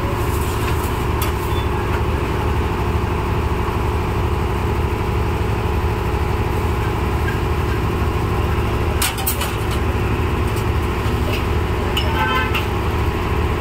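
Steady road traffic noise with a vehicle horn sounding briefly near the end, and a couple of sharp knocks about nine seconds in.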